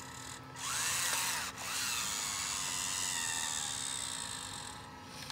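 Small electric motors and gears of a Hobby Engine RC track loader whining as it runs. The pitch rises as the motors spin up about half a second in, breaks off briefly, then a steady high whine runs for about three seconds before dying away near the end.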